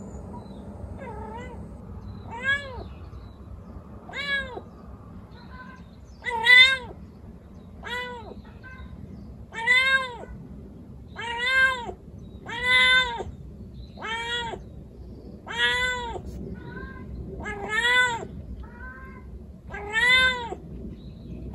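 Young female white calico cat in heat, calling over and over: about a dozen drawn-out meows, each rising and then falling in pitch, about every one and a half to two seconds. This is the mating call of a female in season, searching for a tom.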